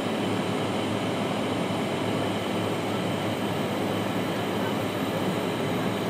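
Steady cabin noise of an Embraer 175 airliner in flight: the even drone of its two General Electric CF34 turbofan engines and the rush of air past the fuselage, heard from a seat over the wing.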